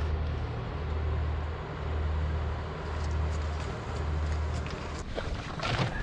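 Lake steamer's engine running as the boat cruises past: a low drone that swells and fades about once a second. Near the end there are a few knocks and some rustling.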